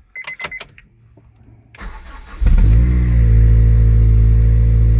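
Honda Integra DC5 Type R's 2.0-litre K20A four-cylinder, fitted with a Fujitsubo Power Getter exhaust, starting after sitting overnight. A short beep and key clicks come first; the starter cranks briefly about two seconds in, the engine catches with a quick rise in revs, then settles into a steady idle.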